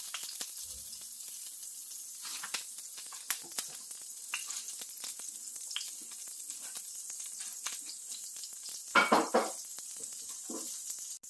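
Olive oil sizzling in a hot cast-iron skillet left with browned bits from searing meat: a steady hiss with many small crackles and pops. A brief louder clatter about nine seconds in.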